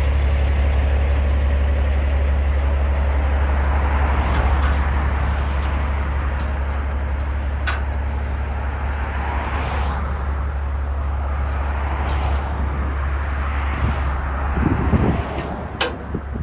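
Truck engine idling steadily with a strong low hum, with a few sharp clicks. Near the end a low thump sounds and the hum drops away.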